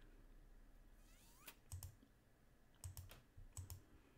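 Faint computer mouse clicks, about half a dozen spread irregularly, several in quick pairs.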